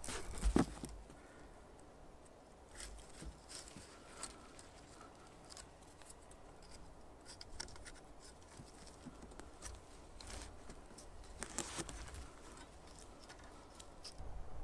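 Hands working cord, sticks and a thin metal saw blade while lashing the blade to a branch bow: scattered small clicks, scrapes and rustles, with a heavier knock about half a second in and a cluster of clicks about three quarters of the way through.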